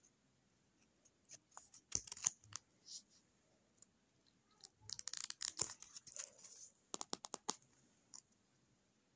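Paper and card being handled: short crisp rustles and taps as a small handmade paper box is opened and folded back, with a quick run of clicks near the end.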